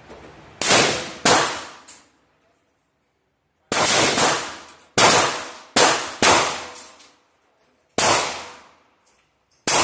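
AK-pattern rifle fired single shots at a steady, unhurried pace: about nine loud sharp reports at uneven intervals, each with a short fading tail, plus a couple of fainter shots between them.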